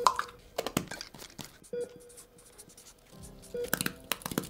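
Plastic specimen cup clicking and tapping as it is handled, then a pen scratching a label onto it, over light background music with a short beep about every two seconds.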